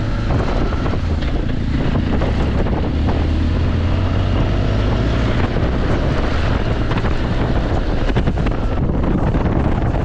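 Wind rushing over the microphone on a moving motorcycle, over a steady low engine drone.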